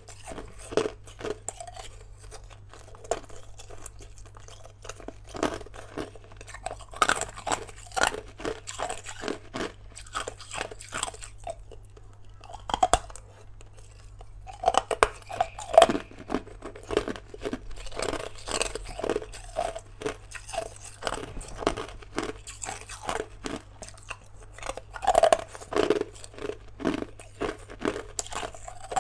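Hard ice being bitten and chewed: a dense, irregular run of sharp cracks and crunches, with a short lull about halfway through.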